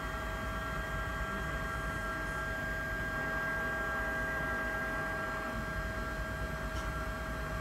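Steady electrical hum with several high, unchanging tones over a low rumble, from the laboratory equipment running a plasma column in a vacuum chamber.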